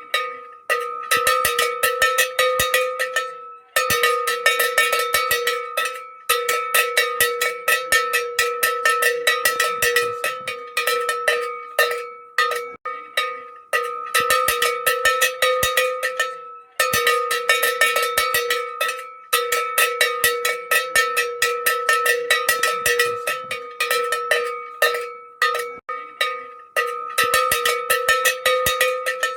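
An old iron cattle bell (chocalho) shaken by hand, its clapper clanking against the shell several times a second in a long run, broken by a few short pauses. Each strike rings on with a clear low tone and a higher one above it.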